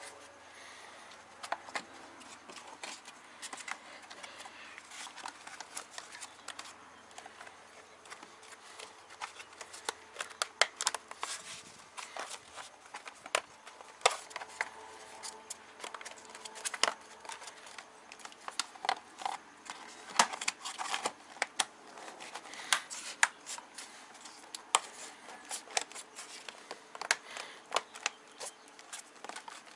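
Irregular clicks, taps and rustles of plastic parts and a car's wiring harness being handled and pressed into place.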